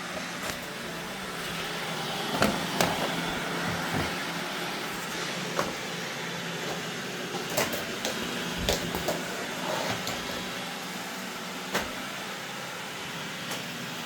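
Roomba robot vacuum running with a steady hum, with a scattering of short knocks and clicks.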